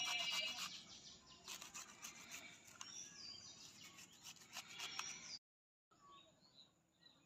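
Ginger rubbed on a small flat stainless-steel hand grater over a steel bowl: quick rasping scrape strokes that stop abruptly about five seconds in. Birds chirp faintly in the background.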